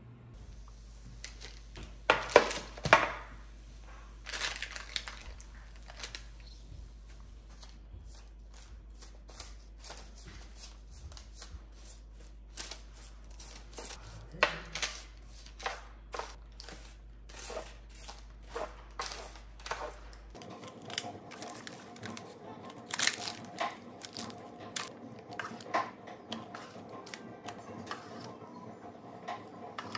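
Wooden spoon scraping and tapping on a parchment-lined metal sheet pan while roasted vegetables and sausage are stirred and scooped, with the parchment crinkling. Food drops into plastic meal-prep containers. The clicks and scrapes keep coming all through, the loudest a cluster of knocks about two to three seconds in.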